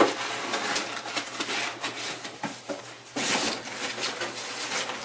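Crumpled brown packing paper rustling and crinkling as hands dig through a cardboard box, with a few light knocks. The rustling grows louder about three seconds in.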